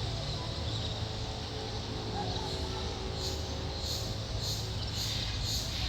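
Outdoor background ambience: faint murmur of voices over a steady low hum, joined about three seconds in by a high, pulsing buzz at roughly two pulses a second.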